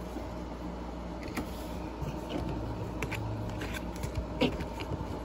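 Pokémon trading cards handled by hand, light rustling and flicking of the card stock with scattered soft ticks, the sharpest about four and a half seconds in.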